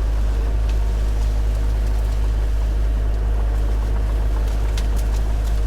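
Hyundai HX85A excavator's diesel engine running steadily under work as the machine pushes a fallen tree aside, with a few light clicks about five seconds in.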